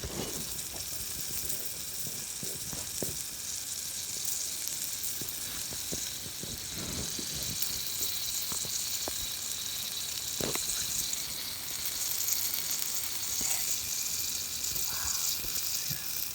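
Mushrooms sizzling steadily in a thin metal pan, with a few faint light taps.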